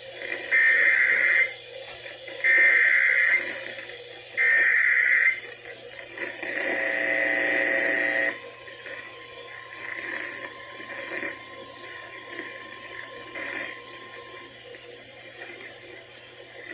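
Emergency Alert System tones: three roughly one-second bursts of SAME header data, a second apart, then a loud attention tone lasting about two seconds, the signal that opens a broadcast warning. After it comes quieter hiss with a faint steady tone.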